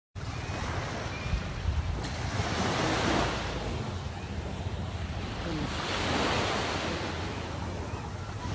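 Sea waves washing on a sandy beach, swelling and fading every few seconds, with wind buffeting the microphone.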